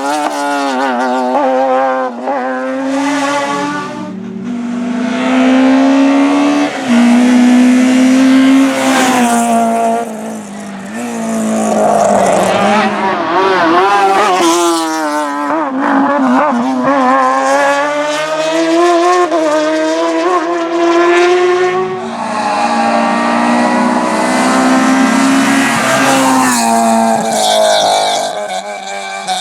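Racing car engines at full throttle, the pitch climbing and dropping sharply again and again through gear changes, with tyres squealing near the end.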